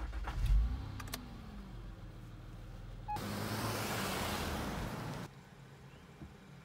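A car's engine rumbling low, with a couple of clicks in the first second or so. A car then drives past close by with about two seconds of rushing tyre and road noise, which cuts off suddenly to a faint low hum.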